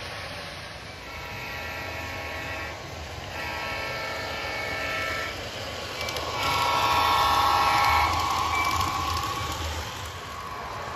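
Sound-equipped model diesel locomotive's horn blowing three long blasts, the third the loudest, over a steady low rumble from the running train.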